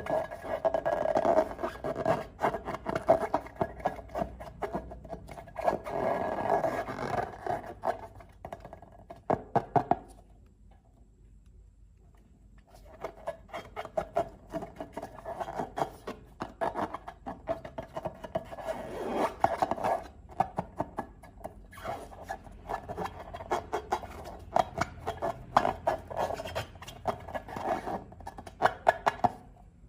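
Slime being squeezed and worked by hand, a dense run of wet crackles and small pops, stopping for a few seconds about ten seconds in and then starting again.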